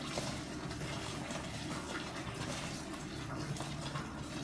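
Wooden spoon stirring a thick, simmering creamy chicken stew in a pot: steady wet stirring sounds.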